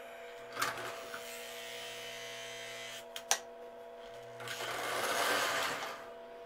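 Power to a prewar Lionel 265E Commodore Vanderbilt toy locomotive is switched on and off, with a low transformer hum coming and going and a couple of clicks, as the power is cycled to step the locomotive's reversing unit. About four seconds in, the locomotive's electric motor whirs for about a second and a half as the train moves along the track.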